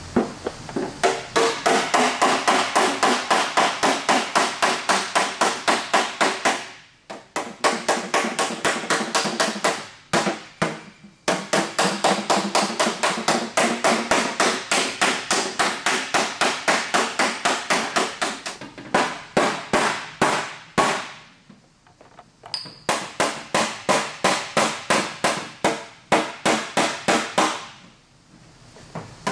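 Steel body hammer beating an aluminum fender panel against a steel dolly held behind it, in rapid ringing blows several a second. The blows come in runs broken by short pauses as dents and wrinkles are hammered out of the fender flare.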